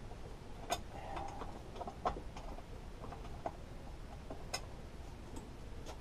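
Light clicks and knocks of plastic and metal parts being handled while a lawnmower engine is put back together. The sharpest come a little under a second in, about two seconds in, and again past the middle.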